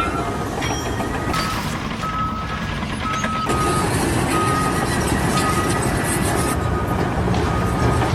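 A heavy vehicle's reversing alarm beeping at one steady pitch about once a second over loud engine and machinery noise.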